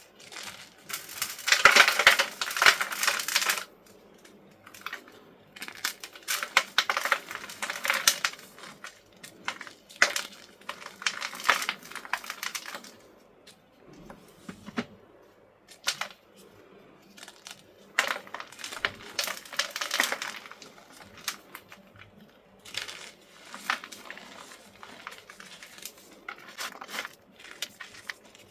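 Blocks of gym chalk crunching and crumbling as they are crushed, in several bursts of a few seconds each with short clicks and small crumbles between them.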